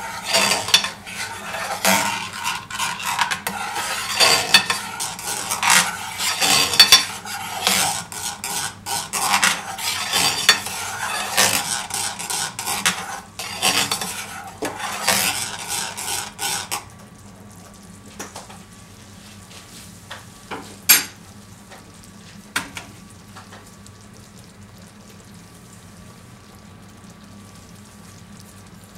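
Metal spoon scraping and clinking against a stainless steel frying pan as a thickening cream sauce is stirred. About 17 seconds in the stirring stops, leaving the faint sizzle of the simmering sauce and a couple of light clicks.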